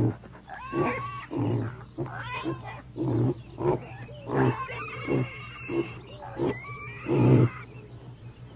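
A series of about ten short animal calls, each bending up or down in pitch. The loudest comes a little past seven seconds in.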